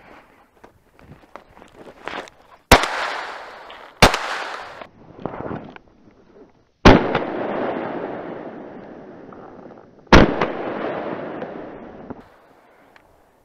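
Four shotgun shots from a Baikal MP-155 semi-automatic, the first two about a second and a half apart and the last two about three seconds apart. Each shot rings out and echoes for a second or two before fading.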